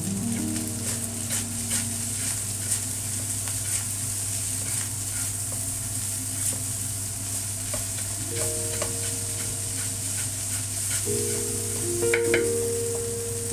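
Fried rice sizzling in a hot wok while a spatula stirs and tosses it, with repeated scrapes and knocks of the spatula against the pan.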